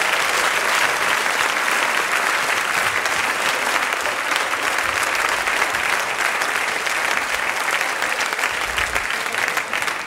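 Studio audience applauding, a steady dense clapping of many hands.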